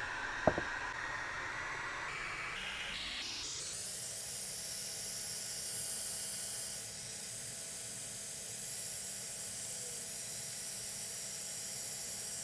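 Steady rushing hiss of a hair dryer blowing. About three seconds in the sound shifts higher and then holds steady, with a faint motor tone under it. A single sharp click comes about half a second in.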